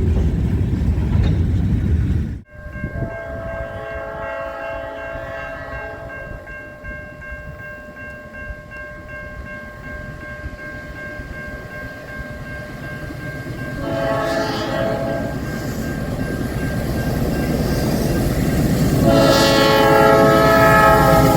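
Nathan Airchime new-cast P3 five-chime locomotive horn sounding its chord: one long blast that slowly fades, a short blast about two-thirds of the way through, and another long blast near the end, louder as the train approaches. Before the horn, a loud low rumble cuts off abruptly.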